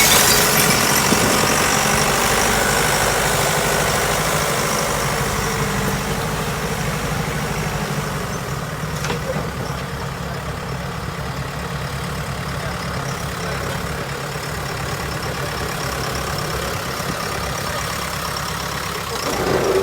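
A motor vehicle's engine running steadily at idle, slowly growing quieter.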